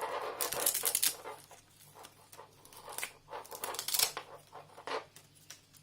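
Rustling and scraping handling noises in several short bursts as a keyboard and its cable are handled, with a loudest stretch near the start.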